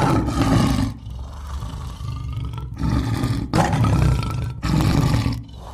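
Lion roaring: a run of deep, rough roars, each about a second long, with brief pauses between them.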